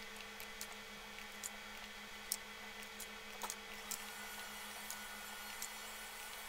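Faint, scattered clicks from a computer mouse and keyboard, roughly one a second, over a steady low hum.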